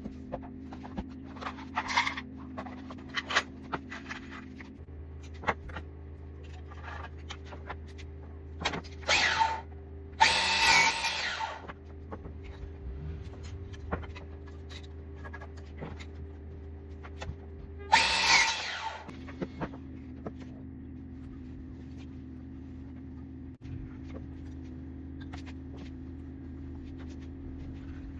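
Woodworking tool work: several short bursts of a power tool, the longest about two seconds near the middle, among scattered knocks and clicks, over a steady low hum.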